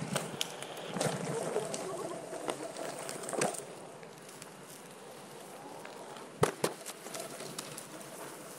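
Onewheel boards rolling over pavement, with steady noise from the moving ride, louder for the first few seconds. Two sharp knocks come in quick succession about six and a half seconds in.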